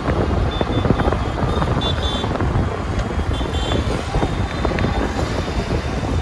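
Roadside traffic ambience: a car and motorcycles passing on a highway, with wind buffeting the microphone.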